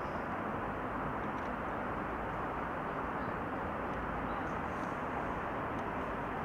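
Steady outdoor background noise: an even rumbling hiss with no distinct events.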